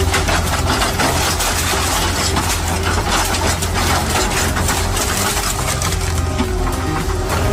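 A machine engine running steadily, with a constant clatter of sharp small impacts over its hum.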